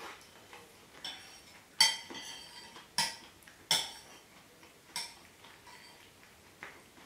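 Metal spoon clinking against a ceramic plate while someone eats: about five sharp, ringing clinks at uneven intervals of roughly a second, the second one the loudest.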